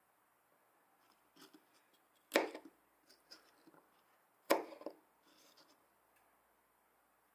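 Small knife slicing okra pods on a cutting board: two sharp knocks of the blade striking the board about two seconds apart, with a few lighter ticks of smaller cuts between them.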